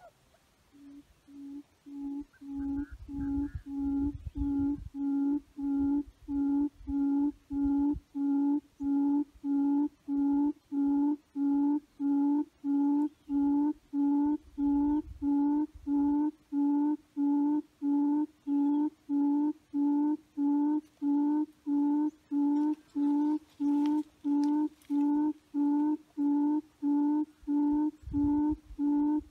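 A recorded animal call played through a loudspeaker as a hunting lure: a short, low hooting note repeated very evenly, about three notes every two seconds, growing louder over the first few seconds. A few low rumbles come and go underneath.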